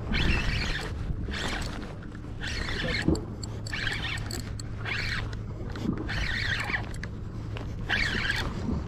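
A spinning reel being cranked, its gears whirring in short bursts about once a second as a jig is worked back in. A steady low rumble runs underneath.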